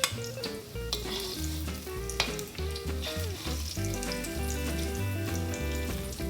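Batter-coated tofu lumps deep-frying in hot oil, a steady sizzle with a few sharp clicks in the first couple of seconds, under background music.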